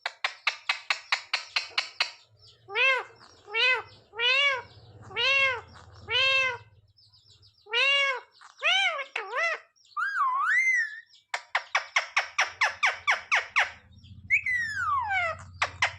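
Indian ringneck parakeet calling: a fast chattering run of about eight notes a second, then a string of about five rising-and-falling squawks a little under a second apart. After a few whistled notes it gives a second chattering run and a long falling whistle near the end.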